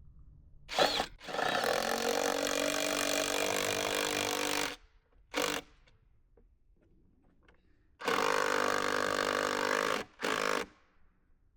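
Power driver running a 3/8-inch lag bolt into a wooden post in several trigger pulls: a short burst, a long run of about three and a half seconds, a brief blip, then a two-second run and a short final burst.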